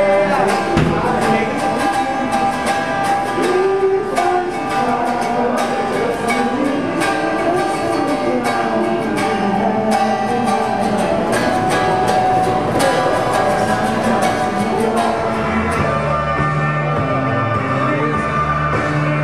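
Rock music: a guitar strummed in a steady rhythm with a man singing over it, and low bass notes joining near the end.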